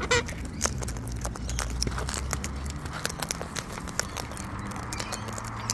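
Irregular light clicking and crackling from wild cockatoos feeding and nibbling close by, with no calls. A low steady hum runs under it and stops about three seconds in.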